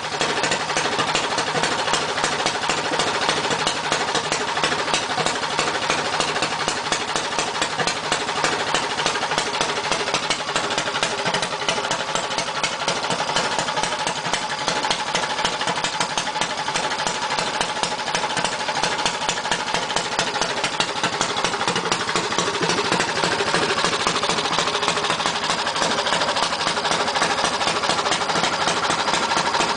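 Briggs & Stratton Animal single-cylinder four-stroke kart engine running steadily at a constant speed during its break-in.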